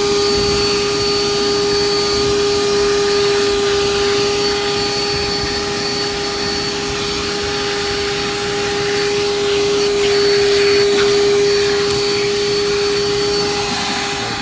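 Ridgid 18V cordless 3-gallon wet/dry shop vacuum running steadily, a constant motor whine over the rush of air through the hose, cutting off at the very end.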